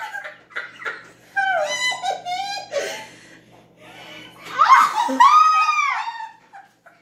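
Two women laughing hard, in two bouts of high-pitched, squealing laughter with a short lull between.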